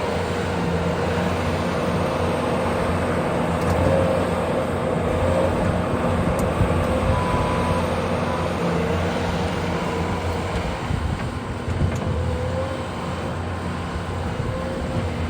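Bobcat skid steer running steadily, its engine hum joined by a higher whine that wavers a little in pitch.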